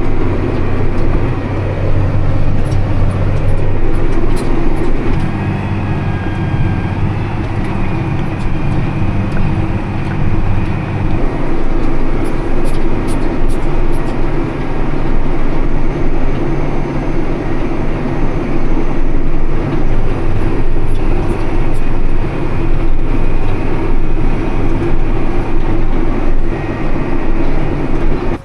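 Tractor engine running steadily under load while pulling a John Deere 560M round baler through windrows, a loud continuous drone.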